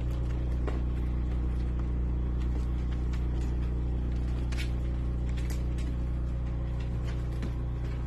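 A steady low hum at an even level, with faint scattered ticks over it, fitting puppies' claws on a wooden floor.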